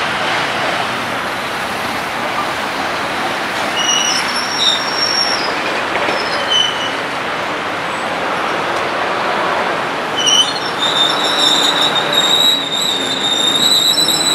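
Narrow-gauge electric railcar of Rome's Roma–Centocelle line approaching on curving track, its wheels squealing on the rails: short high squeals from about four seconds in, turning into a steady high-pitched squeal from about ten seconds, over a steady running rumble.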